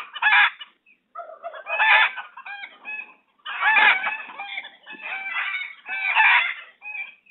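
Chickens clucking and crowing, several calls overlapping in bursts of a second or so with short gaps between.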